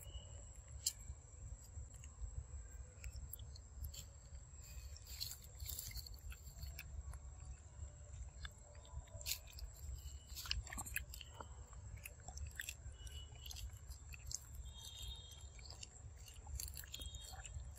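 A macaque biting into and chewing a round yellow fruit, with faint, irregular small crunches and wet clicks throughout, under a steady high tone.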